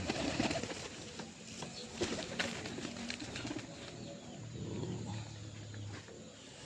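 Domestic pigeons cooing, with a low, drawn-out coo about four and a half seconds in. A few sharp clicks come around two seconds in.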